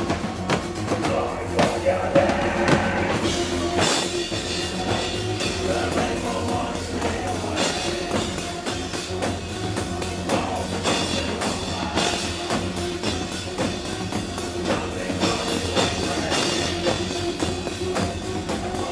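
Live industrial rock band playing loud, with a pounding drum kit keeping a steady beat under distorted instruments.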